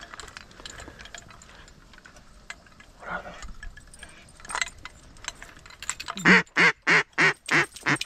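Duck quacking: six loud, evenly spaced quacks about three a second, starting about six seconds in, each a little softer than the last.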